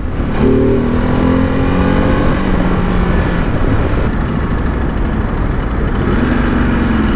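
Ducati DesertX Rally's 937 cc L-twin engine running while riding in traffic, its note shifting a little in the first few seconds. A steady rush of wind and road noise runs under it.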